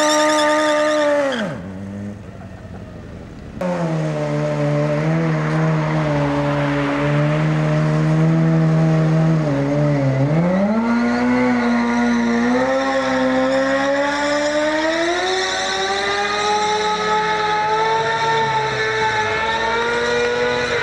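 Sport motorcycle doing a burnout, its engine held at high revs while the rear tyre spins on the tarmac. The engine note drops away a little over a second in, comes back sharply after a quieter stretch, dips around the middle and then climbs slowly toward the end.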